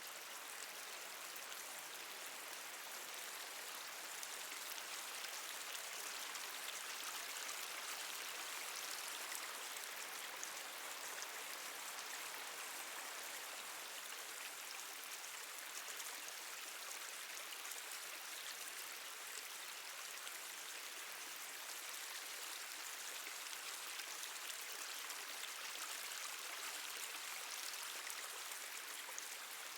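Steady wash of running water with many fine drips scattered through it.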